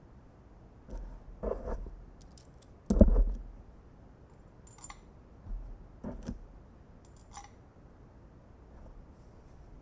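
A series of light metallic clinks and knocks from screws and a 5 mm Allen key being handled as the new hub is fitted to the spin bike wheel; the loudest, a sharper knock, comes about three seconds in.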